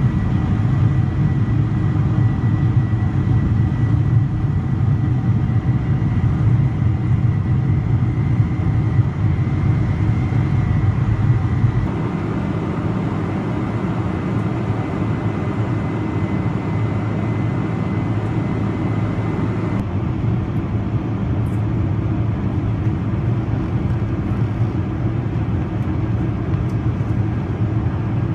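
Boeing 747-400 jet engines heard from inside the cabin: a steady, loud rush of engine and air noise with a thin high whine running through it. The sound changes abruptly twice, about twelve and twenty seconds in, where the recording is cut between stages of the flight, and it is a little quieter after the first cut.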